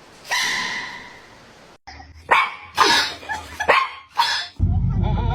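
A dog barking, about four short sharp barks spread over a couple of seconds, after a brief ringing sound that fades near the start.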